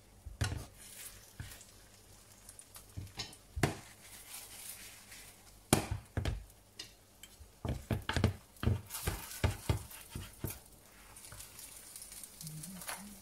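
Non-stick frying pan being handled on a glass-ceramic hob: irregular knocks and clinks of the pan and a utensil, the loudest about six seconds in as the pan is lifted and moved. A quick run of clicks and scrapes follows as the utensil works under the wrap in the pan.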